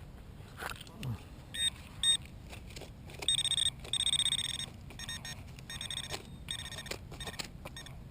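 Metal detector's electronic target tone: a high-pitched beep repeating in short bursts, some held for about half a second, signalling metal in the ground.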